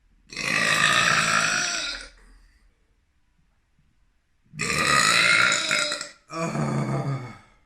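Three long, drawn-out belches: the first lasts nearly two seconds, and after a pause of over two seconds two more follow in quick succession.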